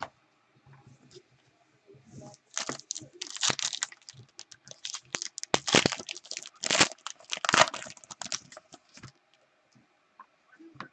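Wrapper of a 2016 Panini Contenders football card pack being torn open and crinkled, a run of sharp crackling tears lasting about six seconds.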